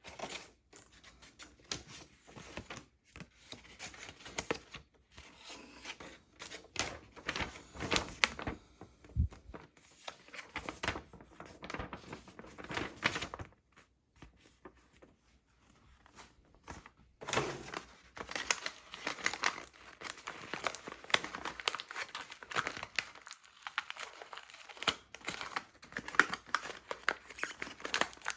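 Toy packaging being unwrapped by hand: irregular crinkling and tearing, with a couple of brief pauses.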